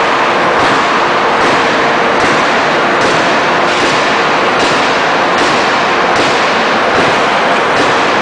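3150-ton hot forging hydraulic press running while it forges a red-hot billet: a loud, steady mechanical din with a sharper pulse repeating a little faster than once a second.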